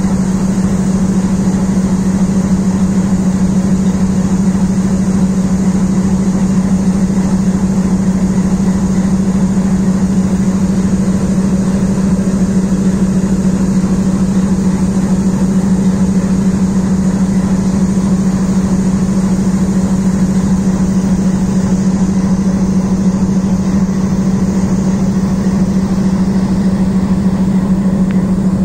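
Twin ALCO WDM-3A diesel locomotives running at close range, their 16-cylinder ALCO 251 engines making a loud, steady rumble with an unbroken low drone.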